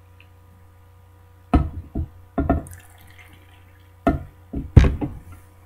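Several sharp clunks and knocks of glassware and a drink can being handled on a tabletop, in two groups: three about a second and a half in, and two or three about four seconds in. The last one, near the end, is the loudest.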